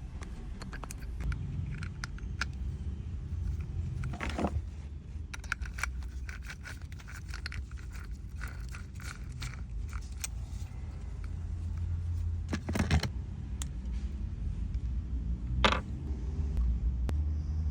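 Irregular clicks, taps and scrapes of small hard parts and tools being handled, with a few louder scraping knocks, over a steady low rumble.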